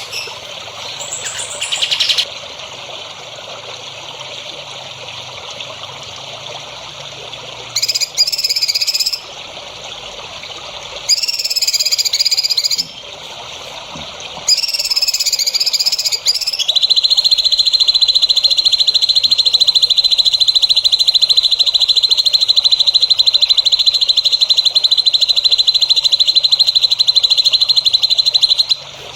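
Songbird song for masteran: scattered high chirps, then three short bursts of song, and from just past the middle a loud, very fast pulsing trill held for about twelve seconds before stopping abruptly.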